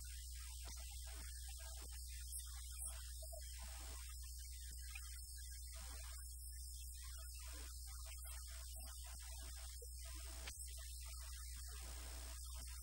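Steady low electrical mains hum in the audio feed, with a faint high-pitched whine above it.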